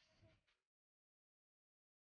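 Near silence: a very faint, brief sound in the first half-second cuts off abruptly, then the soundtrack is dead silent.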